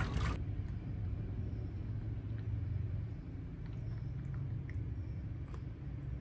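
Low steady rumble, with a few faint light clicks of a plastic pacifier and toy ball being handled.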